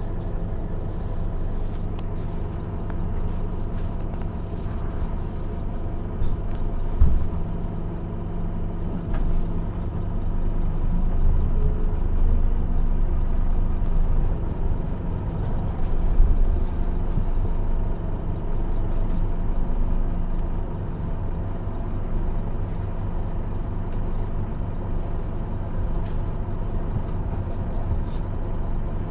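Scania OmniLink bus heard from inside the saloon: its diesel engine running steadily, with light clicks and rattles and a sharp knock about seven seconds in.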